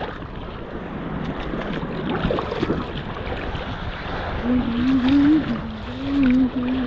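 Surf and sloshing seawater around a small boat, mixed with wind noise on the microphone. A little past halfway a low wavering drone joins in and carries on to the end.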